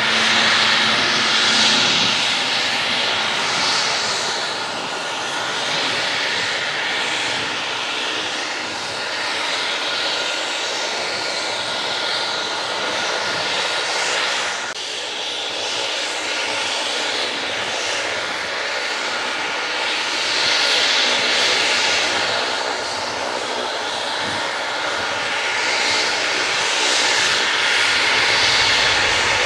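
Leonardo AW139 helicopter running on the ground with its rotors turning: a steady turbine whine from its twin turboshaft engines over the rush of the main and tail rotors, swelling and easing slowly in loudness.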